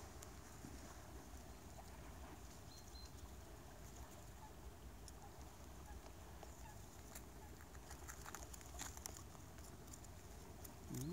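Quiet background with a few soft, scattered clicks of rabbits nibbling at hand-held carrots. Right at the end a brief, louder call starts, rising in pitch.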